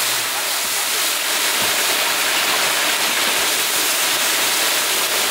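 Hot oil sizzling hard in a large steel frying pan as a bowlful of labeo bata fish pieces is tipped in to deep-fry: a loud, steady hiss.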